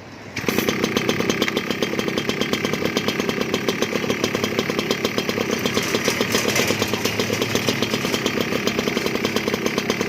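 Small 71cc engine cutting in suddenly about half a second in, then running steadily at idle with rapid, even firing pulses.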